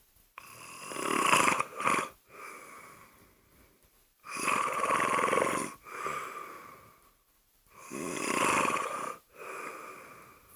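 A sleeping person snoring: three loud, rasping snores about every three and a half seconds, each followed by a softer breath.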